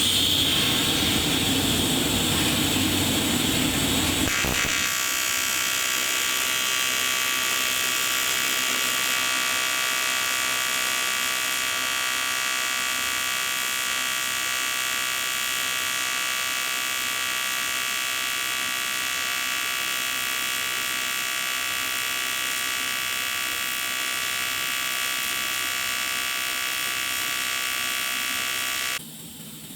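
AC TIG welding arc of a Kingree Tig315 on aluminum plate at about 150 amps: a steady buzz. It is rougher and noisier for the first few seconds, then settles into an even hum, and cuts off abruptly near the end as the arc is broken.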